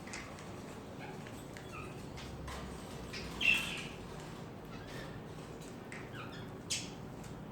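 Birds calling in short chirps and squawks, with a louder call about halfway through and another sharp one near the end.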